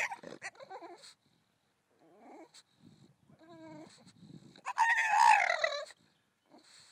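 English bulldog whining in a series of drawn-out, wavering cries, the longest and loudest lasting about a second near the end.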